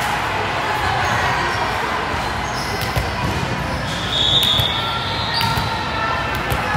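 Echoing ambience of a busy indoor volleyball hall: a hubbub of players' and spectators' voices across several courts, with scattered thuds of balls being hit and bouncing on the hard floor. A few brief high squeaks cut through, the clearest about four seconds in.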